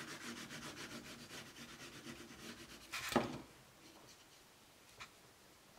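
Tip of a liquid glue bottle scraping along a cardstock flap as glue is drawn on, a faint scratchy rubbing. A single knock comes about three seconds in, then fingertips rub faintly over the paper, spreading the glue.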